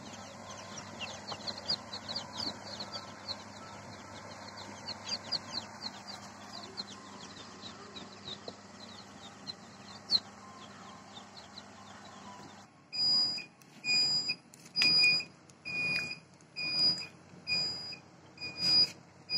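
Chicks peeping constantly in a crate over a steady low hum. About 13 s in this gives way to a loud electronic beep, one even tone repeating a little faster than once a second.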